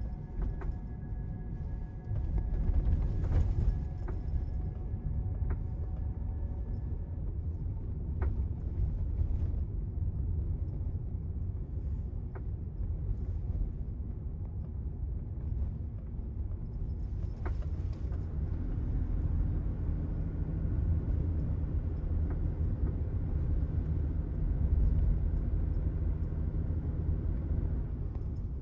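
Toyota Sienta Hybrid 4WD heard from inside the cabin while driving: a steady low road rumble with a handful of sharp, isolated knocks from the rear over bumps. The knocks are an unexplained rear suspension noise on a car fitted with Tanabe DF lowering springs on standard shocks.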